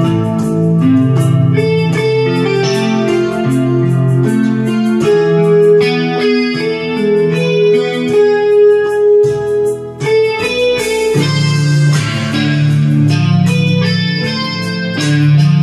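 Electronic keyboard playing a song: a melody over held bass notes, with a steady beat of light ticks. The sound drops out briefly about ten seconds in.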